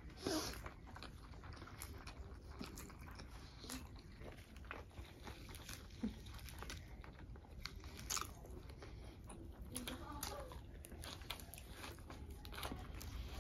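Faint close-up eating sounds: chewing and crunching of fried climbing perch, with scattered small clicks and smacks of mouths and fingers.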